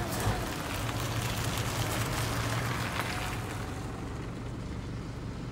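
House truck's engine running as the truck moves off, a steady low hum under road and engine noise that grows fainter about two-thirds of the way through.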